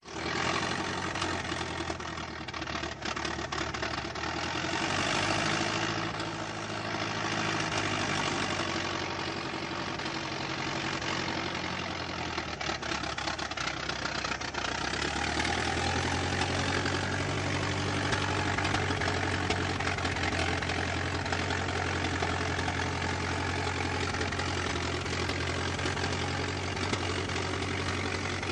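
Old car engine running, its note swelling and easing a few times in the first half, then idling steadily.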